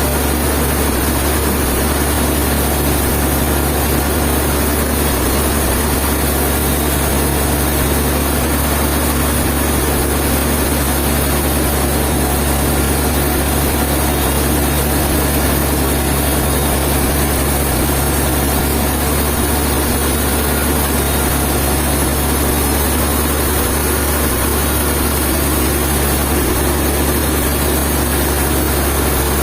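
A heavy engine running steadily at an even speed, with no change in load and no knocks or breaks.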